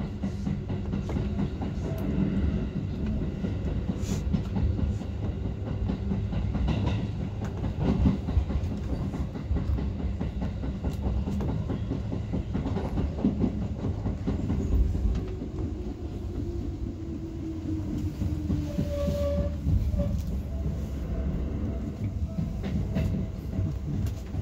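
Commuter electric train heard from inside the driver's cab, wheels running on the rails with scattered clicks over rail joints and points. In the second half a motor hum falls slowly in pitch as the train slows into the terminal platform, and a brief beep sounds near the end.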